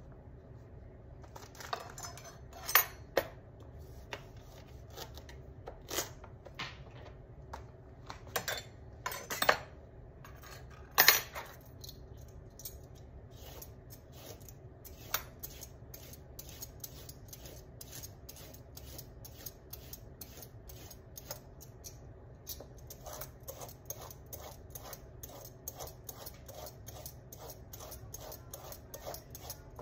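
A chef's knife and hands knocking on a plastic cutting board as diced celery is gathered, with a few sharp clacks in the first dozen seconds. Then a vegetable peeler scraping down a raw carrot in a steady run of short strokes, two or three a second.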